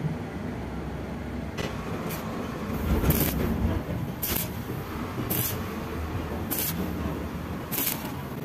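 Stick-welding arc on thin vertical steel plate, struck in short crackling bursts about once a second, the on-and-off stitch technique used to keep thin sheet from burning through. A low steady rumble runs underneath.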